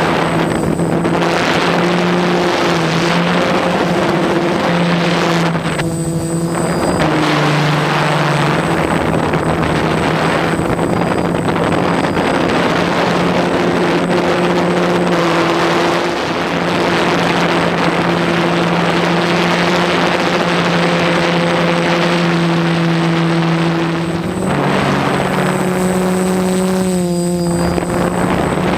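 DJI F550 hexacopter's motors and propellers buzzing steadily in flight. The pitch steps up and down as the throttle changes, with a few brief dips.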